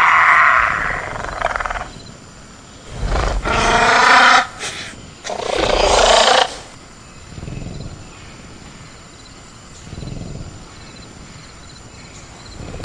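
Sound-effect velociraptor vocalizations: a call trailing off about a second in, then two short loud growling roars a couple of seconds apart, followed by fainter growls.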